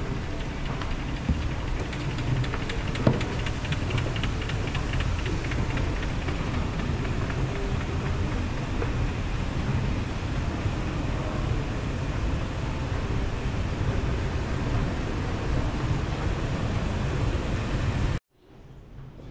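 Escalator running: a steady low rumble and hiss, with a few faint clicks about three to five seconds in. The sound cuts off suddenly near the end.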